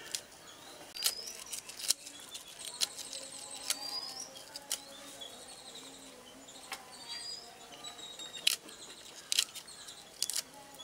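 Malabar spinach leaves and stems being sliced on an aruvamanai, an upright curved blade fixed in a wooden base: a dozen or so sharp, uneven snaps, some in quick pairs. Small birds chirp in the background.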